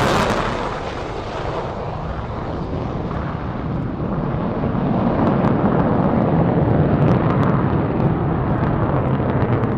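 Jet engine of a Saab 35 Draken fighter, a continuous deep rumbling roar as it takes off and climbs away, growing louder over the middle of the stretch.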